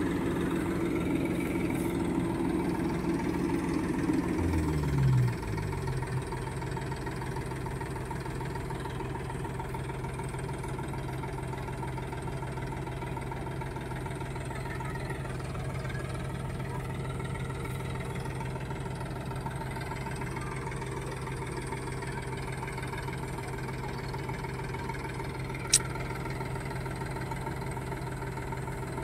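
Sonalika tractor's diesel engine held at raised revs with the tractor bogged in mud under a loaded trolley, then throttled back, gliding down to a steady idle about five seconds in. A single sharp click near the end.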